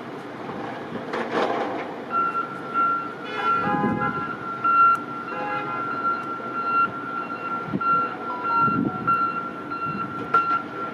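A vehicle's reversing alarm beeping steadily from about two seconds in, with a car horn honking briefly twice, over the rumble of vehicle noise.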